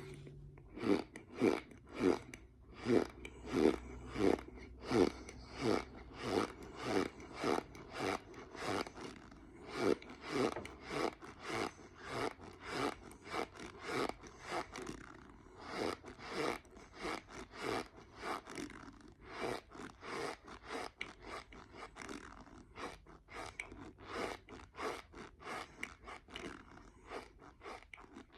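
Raw cornstarch being chewed close to the microphone, each chew giving a squeak as the packed powder compresses. The chews come in a steady rhythm of about one and a half a second.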